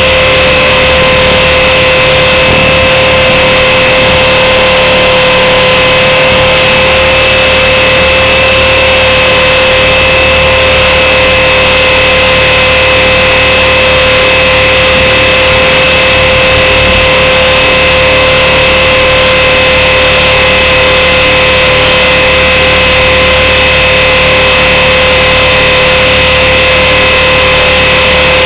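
Blade 400 electric RC helicopter's motor and rotors, heard from its onboard camera: a loud, steady whine on one unchanging pitch over a heavy rushing noise.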